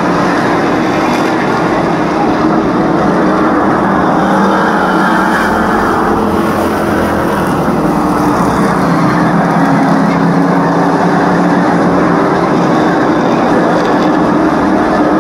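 A pack of street stock race cars' engines running together, a loud continuous engine noise with no clear single pass standing out.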